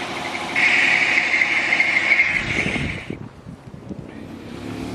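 1984 Pontiac Parisienne wagon's V8 running steadily, back running on a freshly replaced ignition module, distributor cap, rotor and coil. A loud high steady whine joins about half a second in and stops with the rest of the sound dropping away about three seconds in.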